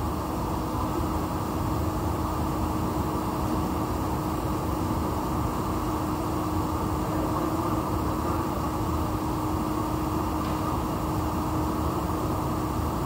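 Steady hum of workshop machinery: an even rushing noise with one low, constant tone through it.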